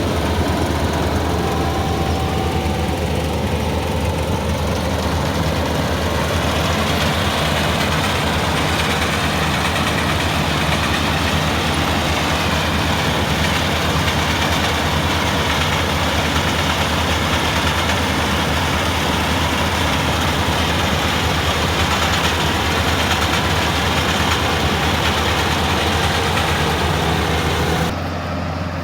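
A Kubota farm machine's engine running steadily, with a strong low hum and dense mechanical noise, easing off a little near the end.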